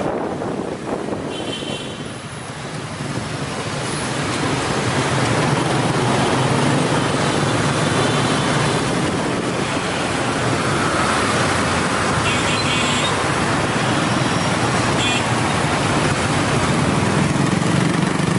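Heavy scooter traffic heard from the back of a moving motorbike: the steady drone of small motorbike engines under road and wind noise. A few short high beeps from horns cut through, about a second in and again later.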